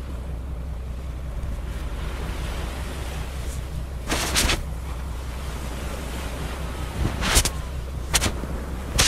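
Gentle surf and wind at the shore, with a steady low wind rumble on the microphone. Brief rustling noises come about four seconds in and again three times near the end.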